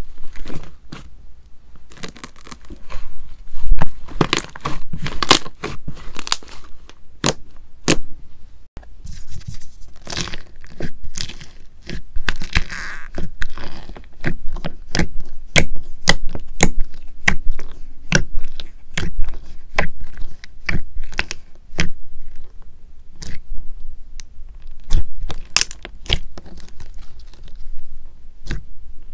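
Hands squishing, stretching and poking thick slime, making irregular sticky clicks, pops and crackles, several a second.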